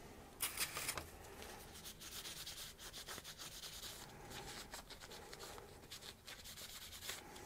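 Faint rubbing strokes of abrasive paper on a brake pad's thin metal backing plate (anti-squeal shim), cleaning it up. A brief louder rustling scrape comes about half a second in.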